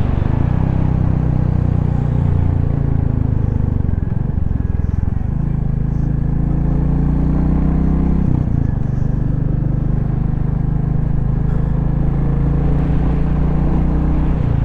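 Motorcycle engine running steadily while riding along. The engine note changes abruptly about four seconds in and again a little past eight seconds.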